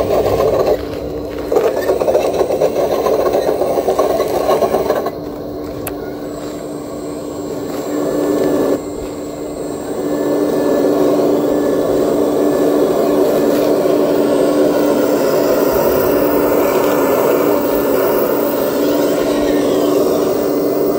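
Radio-controlled hydraulic scale model of a Liebherr 970 crawler excavator working: a steady motor and hydraulic-pump hum that dips several times in the first half and grows louder and steadier from about ten seconds in, as the boom and bucket move through the sand.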